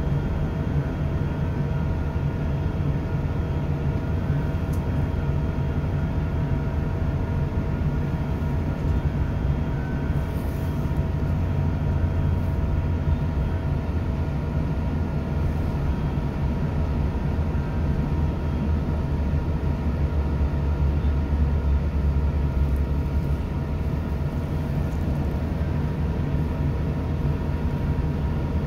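British Rail Class 166 diesel multiple unit running at speed, heard from inside the passenger saloon: a steady low drone from its underfloor diesel engines and rumble of the wheels on the track, with a few faint steady whining tones above it.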